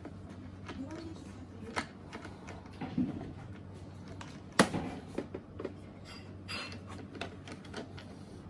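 Scattered hard plastic clicks, taps and knocks as hands fit parts of a Kärcher K4 pressure washer's plastic handle frame and work a locking screw into place, with one sharp click about halfway through.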